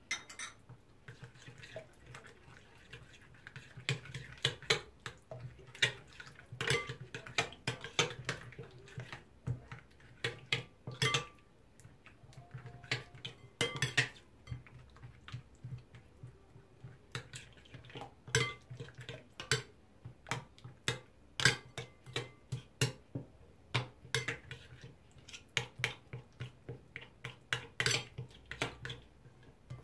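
Metal spoon stirring a thick yogurt-and-spice marinade in a glass bowl, scraping and clinking against the glass at an irregular pace.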